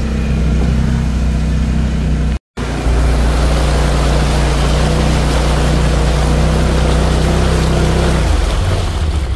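Off-road vehicle engine running steadily while driving through a wet, muddy trail, with a dense wash of tyre and splash noise over it. The sound cuts out completely for a moment about two and a half seconds in, and the engine note drops near the end.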